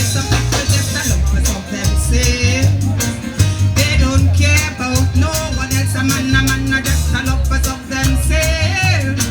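Music: a singer's melody over a deep, pulsing bass line and a steady percussion beat.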